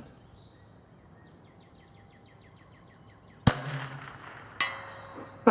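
A single sharp shot from a Keystone Sporting Arms model 722 .22LR rifle about three and a half seconds in, its report trailing off over about a second. About a second later comes a short metallic clink that rings briefly. Birds chirp faintly before the shot.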